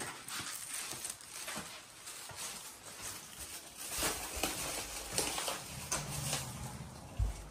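Light, irregular footsteps and taps on a wooden floor, with small knocks and shuffles of movement; a dull thump near the end.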